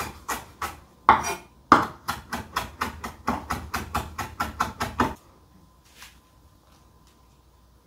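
Chef's knife chopping fresh parsley on a wooden cutting board: a quick, even run of knocks that stops about five seconds in.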